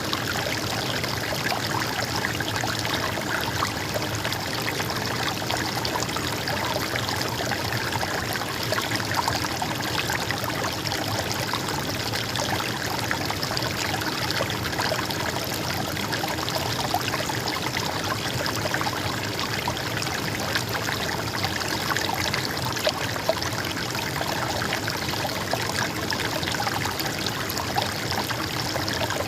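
A stream of water babbling and trickling, a steady rush with small splashes all through.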